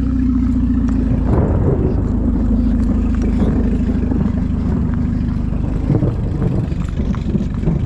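Heavy low wind rumble buffeting the microphone of a handheld camera carried on a run. A steady low hum runs under it, and faint regular footfall ticks come through in the second half.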